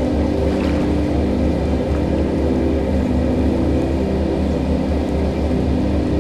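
Steady ambient drone of several held low tones over a constant rushing of water from a small rocky stream, with a deep pulsing rumble underneath.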